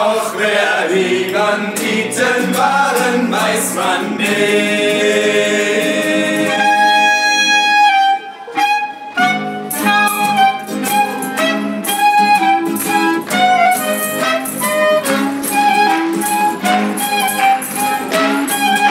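Instrumental interlude of a folk song: clarinets playing the melody over a strummed acoustic guitar, with a brief break about eight seconds in before the tune picks up again in a steady rhythm.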